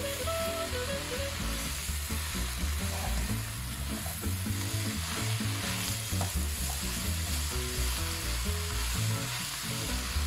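Sliced mushrooms, bell peppers, onions and celery sizzling steadily in a hot frying pan as they are stirred and tossed with a spatula.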